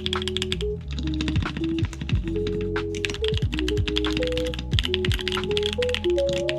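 Fast, continuous typing on a freshly built custom GT80 mechanical keyboard: a dense stream of keystroke clicks, heard as a sound test, over background music with held notes and a bass line.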